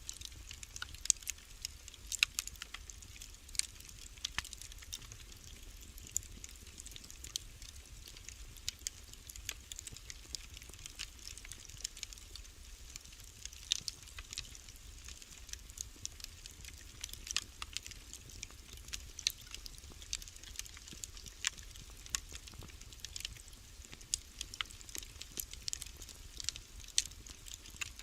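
Wood fire crackling in a fireplace: irregular sharp pops and snaps, several a second, over a soft hiss and a low steady rumble.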